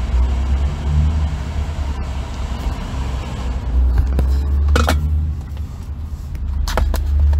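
Jeep Gladiator's engine running with a steady low rumble. Two short clicks come about five and seven seconds in.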